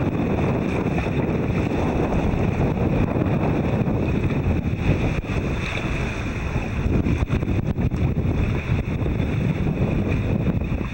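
Wind buffeting the microphone aboard a sailboat under way, gusting up and down, over the wash of the sea.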